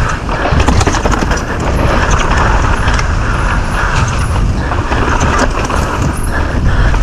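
Wind rushing over the microphone while a downhill mountain bike rattles and clatters over rough trail at speed, with many short knocks from the chain and frame.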